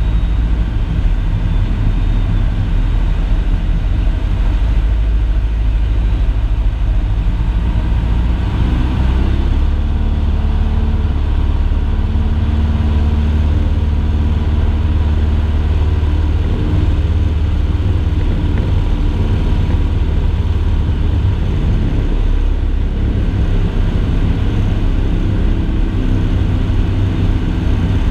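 Cessna 162 Skycatcher's Continental O-200 four-cylinder engine and propeller droning steadily in flight, heard inside the cockpit along with airflow noise. The engine note shifts slightly about nine seconds in and again a little past twenty seconds.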